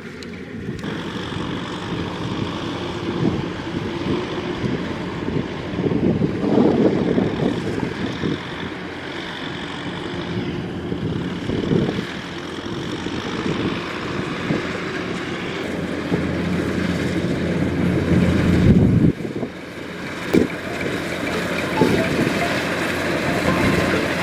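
Kubota DC-105X combine harvester running steadily, its machinery noise building louder over the stretch, with a brief drop about three-quarters of the way through and a few sharp knocks.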